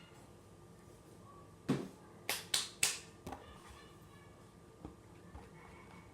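Homemade slime being worked by hand: a low squelching thud, then three sharp pops in quick succession, followed by a few fainter clicks.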